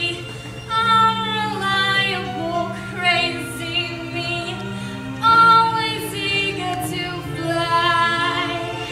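A female voice singing a musical-theatre number over instrumental accompaniment, with long held notes that waver in pitch.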